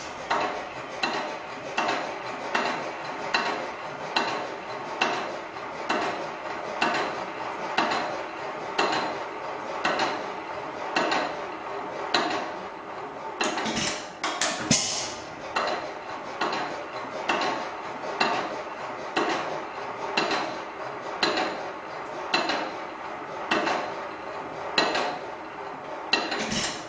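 Hit-and-miss stationary engine running, a regular metallic clanking beat a little faster than once a second, with a few louder bangs about halfway through.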